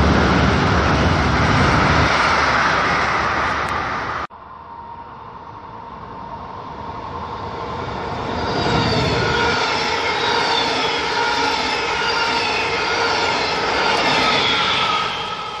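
Electric regional trains of double-deck coaches passing at speed close by, a steady rush of wheels on rails. The first train's rolling noise cuts off abruptly about four seconds in; a second train then approaches and grows louder, its electric locomotive going past with high whining tones over the rolling noise.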